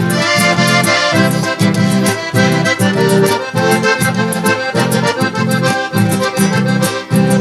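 Accordion playing an instrumental passage between sung verses of a Gaúcho folk song, with a steady bouncing bass accompaniment of about two beats a second.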